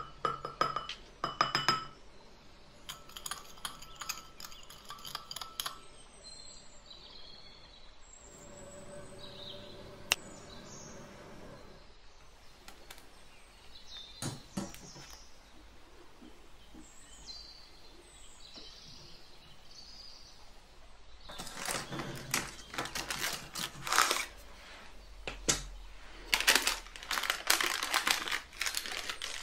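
A measuring spoon clinking against a glass bowl as cinnamon is added to sugar and stirred, then quieter handling of a cake tin. Near the end comes a long run of crinkling and rustling as parchment baking paper is peeled off the baked cake.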